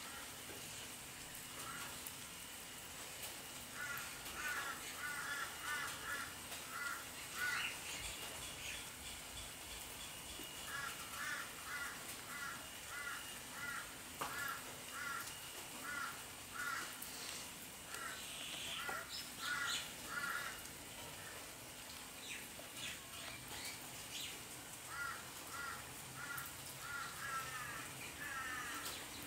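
Common myna calling in several bouts of short, harsh, repeated notes, about three a second, over a steady background hiss.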